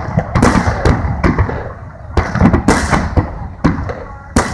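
Aerial fireworks shells bursting in a rapid string of loud bangs, about half a dozen over four seconds, with a low rumble carrying on between them.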